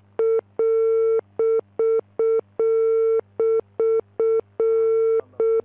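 Telephone line beeping: one steady mid-pitched electronic tone pulsing on and off in a repeating pattern of about three short beeps and then a longer one, as loud as the speech around it.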